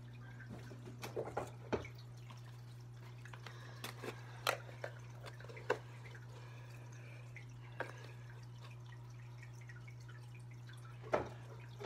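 Home aquarium filter running: a low steady hum with scattered, irregular water drips.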